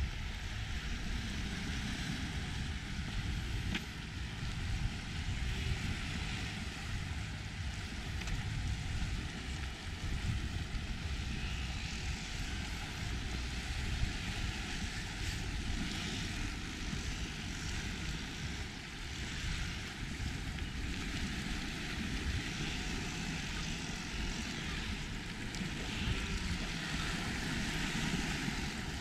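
Wind buffeting the microphone as a fluttering low rumble over a steady breezy hiss.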